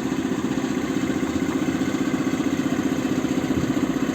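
An engine idling steadily in the background with a fast, even pulse that does not change.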